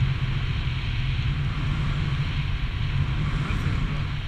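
Airflow buffeting the microphone of a pole-held action camera on a tandem paraglider in flight: a steady low rumble with a hiss above it, and no engine.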